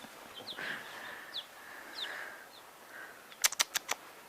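Baby chicks and ducklings peeping: short, high, falling peeps here and there. Past the middle comes a quick run of four sharp clicks, the loudest sound.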